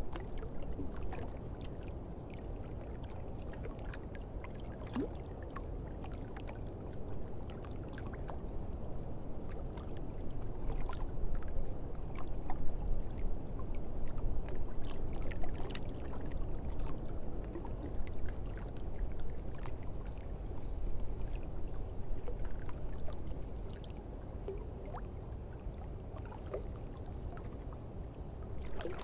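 Steady rushing water with many scattered drips and small splashes over a low rumble, swelling somewhat in the middle.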